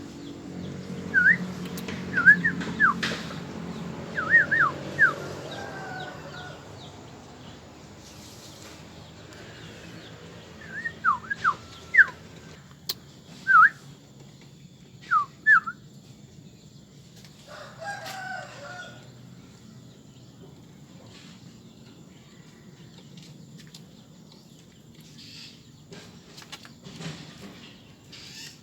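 Two lovebirds chirping in short, shrill bursts in answer to quick, sharp whistled notes. The whistles come in two clusters, in the first few seconds and again about halfway through.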